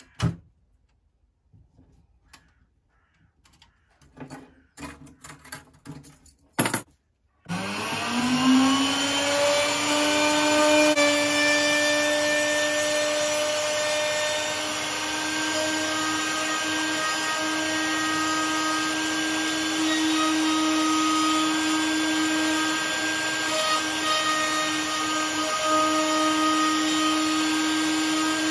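A few handling clicks and knocks, then a handheld plunge router starts about seven seconds in. Its motor whine rises and settles into a steady high pitch, and it runs on evenly.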